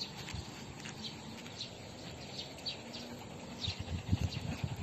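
Small birds chirping: short, high, falling calls scattered irregularly, over low outdoor background noise that bumps up louder near the end.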